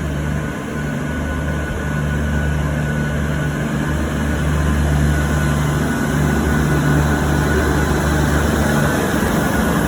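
V/Line VLocity diesel railcar running, a steady low engine drone that grows a little louder about four seconds in.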